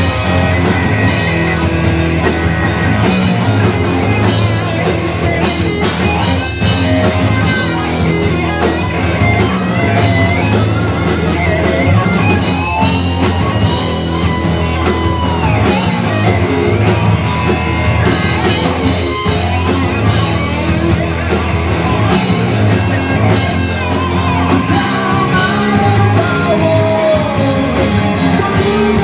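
Rock band playing live: electric guitars, bass guitar and drum kit with cymbals, loud and unbroken.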